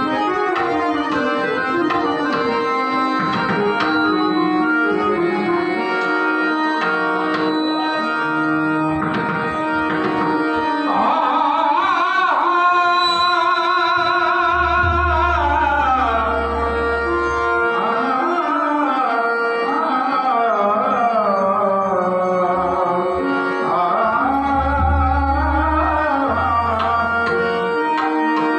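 Marathi devotional bhajan: a male singer in a powerful high voice over a harmonium, with pakhavaj and tabla accompaniment. Harmonium and drum strokes carry the start, and from about eleven seconds in the voice sings long, ornamented held notes, with deep bass drum strokes under two of the phrases.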